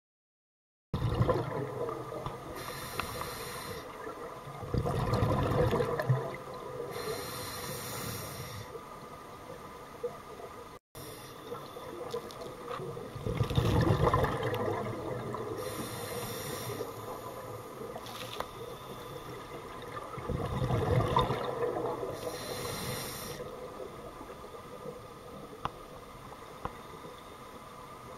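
Scuba diver breathing through a regulator underwater: a hiss on each inhale and a louder rumbling rush of exhaled bubbles, about every eight seconds.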